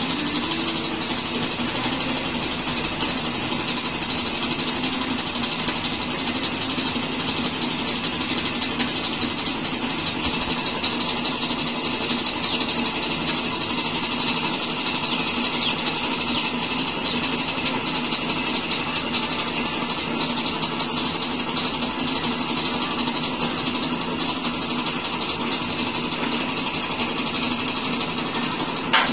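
An engine or motor-driven machine running steadily at one speed, with a fast, even beat and no change in pitch.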